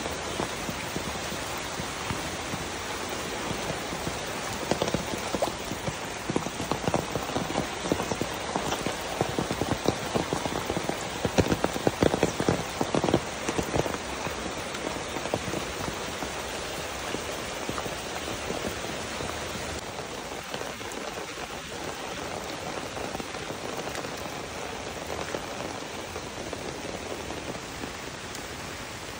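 Steady rain falling on foliage and wet ground, an even hiss of patter. For several seconds in the middle there is a run of louder, closer sharp taps.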